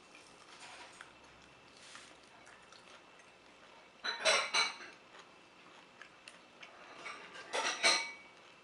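Two short bursts of tableware clatter, about four seconds in and again near the end, with clinks that ring briefly, like dishes and utensils being handled.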